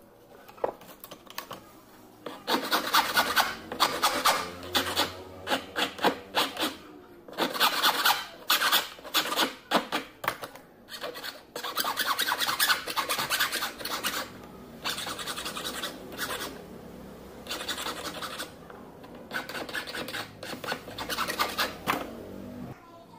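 Metal file rasping across a silver ring held on a wooden bench pin, in rapid back-and-forth strokes starting about two seconds in, lighter and more spaced out in the second half.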